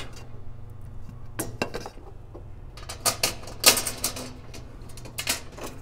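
Small metal parts clinking and tapping in irregular clusters as bolts, spacers and a catalytic converter shield plate are handled and fitted under a car, over a faint steady low hum.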